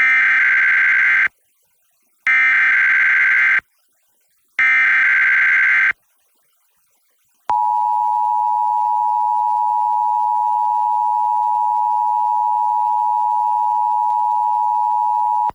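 Emergency Alert System header relayed over FM radio: three buzzing bursts of SAME digital data, each about a second long with a second's pause between. A second and a half later the EAS two-tone attention signal follows, a steady dual tone held for about eight seconds before it cuts off. The encoded header announces a Required Monthly Test.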